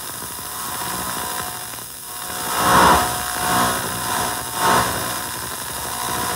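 Noisy signal from a guitar effects pedal chain played through a speaker cabinet: steady hum and hiss, with three swells of harsh noise in the middle, the first the loudest.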